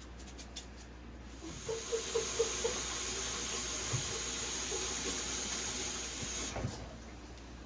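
Kitchen tap running into the sink: a steady stream that starts about a second and a half in and is shut off near the end.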